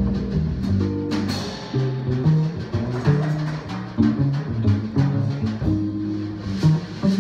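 Live jazz from an archtop guitar, upright bass and drum kit: the bass moves through a line of low notes while the guitar plays and the drums keep time with cymbal strokes.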